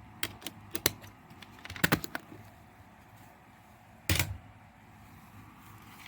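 Plastic CD jewel cases being handled: a few light clicks and taps in the first two seconds, then one louder knock about four seconds in.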